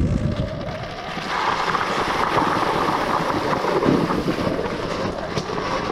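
Electric mountain bike rolling down a steep dirt descent: rough tyre noise over earth and small stones, with wind buffeting the microphone.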